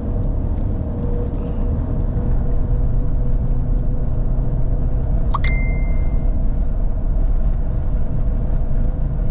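Car driving at freeway speed, heard from inside the cabin: steady road and engine rumble with a faint steady hum. About five seconds in, a brief high chirp rises and holds for about a second.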